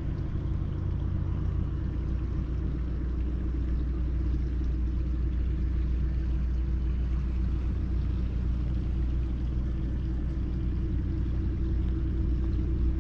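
Steady low mechanical drone with a few fixed low pitches, holding level throughout.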